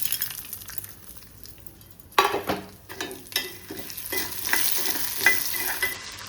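Curry leaves, dals and spices frying in a pan with a faint sizzle. From about two seconds in, a spatula stirs them with a run of irregular scraping strokes against the pan, some of them ringing briefly.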